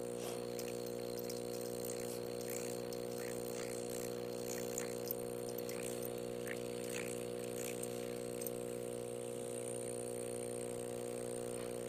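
Small electric air pump humming steadily, with faint scattered clicks over it.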